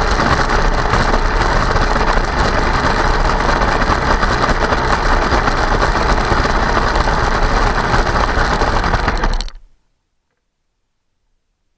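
Kyosho Blizzard electric RC snowcat's motor, gearbox and tracks running with a dense mechanical rattle, which the owner suspects may be ice chunks or a fault needing a look. The sound cuts off abruptly about nine and a half seconds in.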